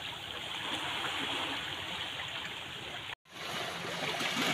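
Small sea waves washing over shoreline rocks, a steady rushing wash that drops out for an instant about three seconds in and comes back.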